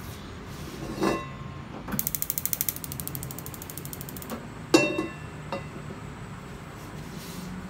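Gas hob burner's igniter clicking rapidly, about a dozen ticks in under a second, as the burner is lit under a non-stick wok. A sharp knock of the metal wok on the burner grate follows, louder than the clicks, with a softer knock before them.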